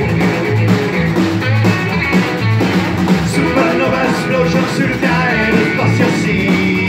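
Rock and roll band playing live: electric guitar, upright double bass with steady bass notes, and snare drum and cymbal, with voices singing into the microphones partway through.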